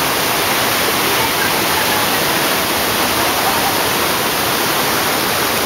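River water rushing over a rock ledge in small whitewater rapids, a steady loud rush.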